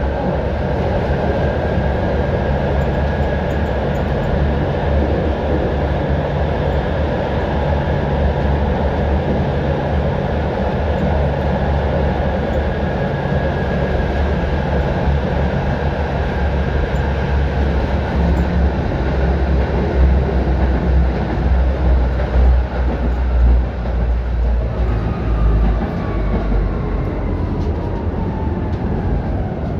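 A 1965 ASEA M28 tram running on its rails, heard from inside the passenger car: a steady loud rumble of wheels and running gear with a faint whine. Near the end the whine falls in pitch.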